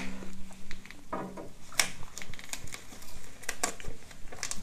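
Hands working inside an open computer case: scattered clicks, taps and rustles as parts and wiring are handled.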